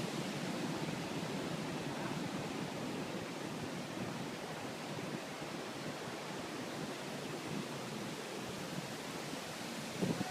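Steady, even rushing noise with no distinct events, with a couple of soft bumps near the end.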